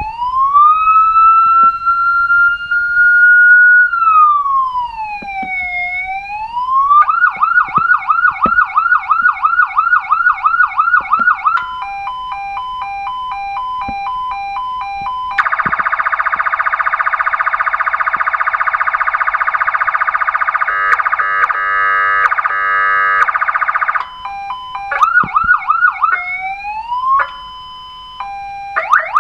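A 200-watt, 8-tone Federal-style electronic siren steps through its tones. First comes a slow rising and falling wail, then a fast yelp of about two sweeps a second, then an alternating two-note tone. Next is a harsh horn-like blast lasting about five seconds, then rapid pulsing tones, and the yelp returns near the end.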